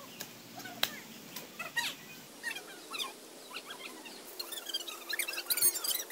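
Small birds chirping in many short, quick calls that crowd together near the end, with an occasional sharp knock from the hoe blade striking the soil.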